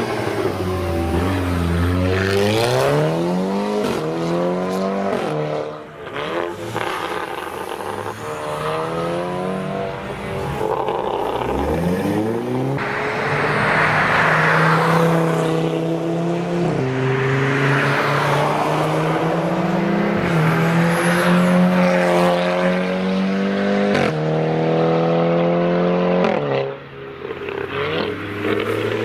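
Turbocharged 2.0 TSI four-cylinder engines, in a Volkswagen Golf R tuned to about 400 hp and an Audi hatchback, accelerating hard. They rev up through the gears, the pitch climbing and then dropping at each shift, across several clips cut together.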